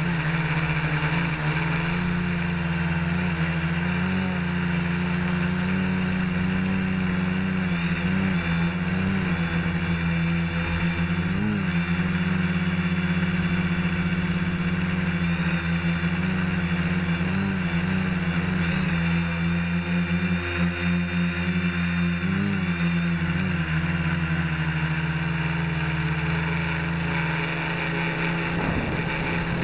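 Home-built quadcopter's electric motors and propellers buzzing steadily in flight, close to the microphone. The pitch wobbles briefly every few seconds as the motor speeds adjust.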